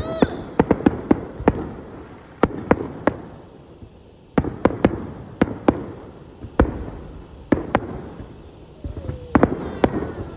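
Aerial firework shells bursting: an irregular run of sharp bangs with a rumble between them, thinning out in the middle and picking up again in a quick cluster near the end.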